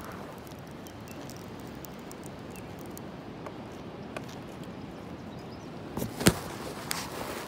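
Steady wind noise on the microphone, with a few light clicks and a sharp knock about six seconds in as a baitcasting rod and reel are handled.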